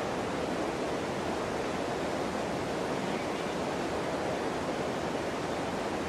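Steady rushing of a flowing river, an even hiss of running water with no breaks.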